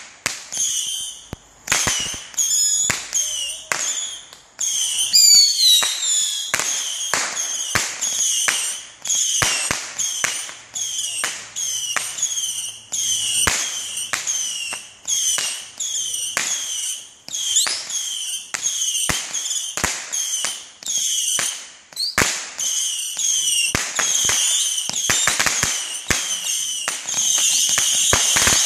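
Fireworks going off in quick succession: a sharp bang about once or twice a second, each trailed by a short high whistle, some gliding up or down. Near the end they run together into a continuous volley.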